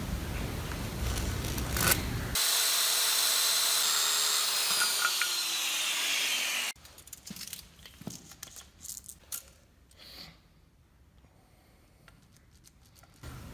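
A steady hiss, then a power saw's motor whining and winding down, its pitch falling steadily for about four seconds before cutting off suddenly. After that, faint scratching and light taps of a pencil and tape measure marking a pine board.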